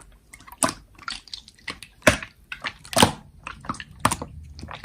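Slime being squeezed and poked by hand, giving irregular sharp clicks and pops.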